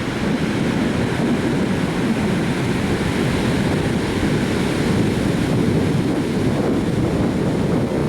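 Ocean surf breaking and washing up the beach, mixed with wind buffeting the microphone in a steady rush.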